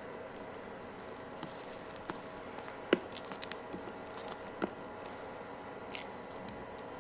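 Red silicone spatula scraping thick whipped dalgona foam out of a nonstick pan, with a few short clicks and taps of spatula and pan, the sharpest about three seconds in. A steady hum with several fixed pitches runs underneath.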